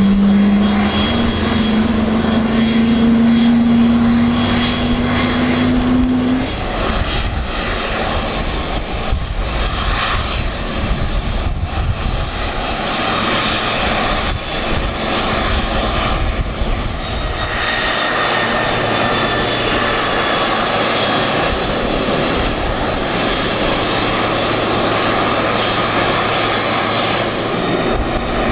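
Boeing 767 jet engines running at low power as the airliner taxis, a loud steady rush with a high whine. A low hum rises slowly in pitch for the first six seconds and then stops, and a further whine comes in a little after halfway.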